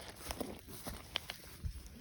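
Footsteps on forest litter: a handful of short, sharp snaps and crackles over a low rustling rumble.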